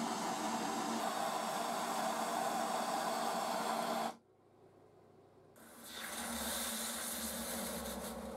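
Gas blowtorch flame hissing steadily as it heats the steel jaws of the pliers for tempering, cut off abruptly about four seconds in. After a short near-silent gap, a hissing sizzle with a low rumble as the hot pliers are quenched in a bottle of water.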